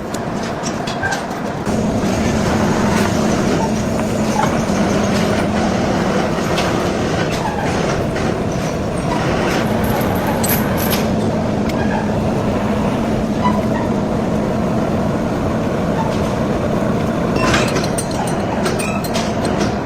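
Heavy industrial lathe running steadily, with a low hum, a grinding machine noise and scattered metallic ticks; it gets louder about two seconds in.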